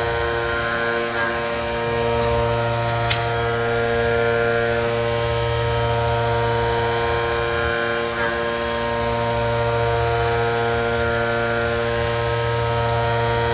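CNC milling machine running steadily, a motor hum with several steady whining tones, and one sharp click about three seconds in.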